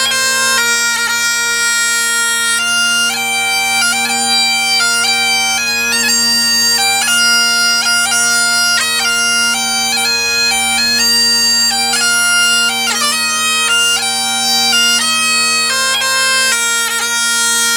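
Great Highland bagpipe played: the drones hold one steady low note beneath a chanter melody stepping between notes, ornamented with quick grace notes.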